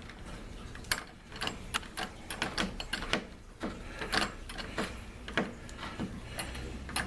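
Phillips screwdriver driving a door knob's mounting screw tight: a string of short, irregular metal clicks and scrapes, about two a second.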